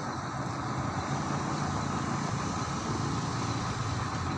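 A steady mechanical hum that runs on without change.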